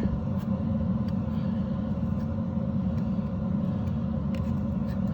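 A steady low rumble, with a few faint light clicks or scrapes, such as a putty knife smoothing spackle on a wall.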